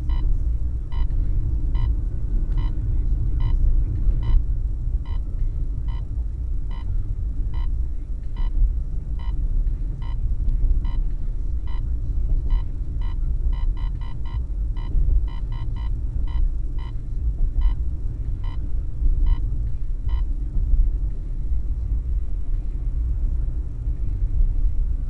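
Cobra RU 760 radar detector beeping an alert, warning of an Arena traffic radar. A short single-pitched beep comes about once a second, grows quicker past halfway, then stops well before the end. Under it is the steady low road rumble inside the car.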